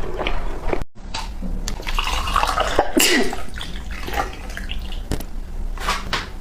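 Close-miked wet chewing of soft custard-filled bread, with sticky mouth sounds; the sound cuts out briefly about a second in.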